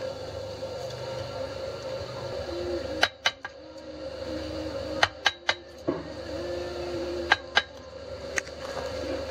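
Machete blade chopping and cutting into the end of a bamboo knife handle: sharp knocks starting about three seconds in, several coming in quick pairs.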